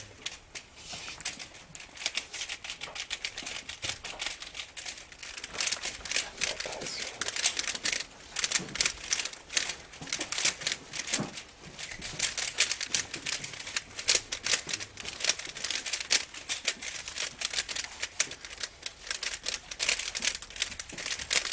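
Rubik's cube being turned rapidly by hand: a dense, irregular run of plastic clicks and clacks, many per second.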